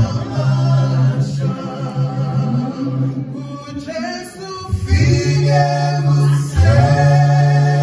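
Male a cappella gospel group singing in harmony into handheld microphones, with a bass voice holding long, steady low notes beneath the upper voices. The bass briefly drops out around the middle and comes back in strongly.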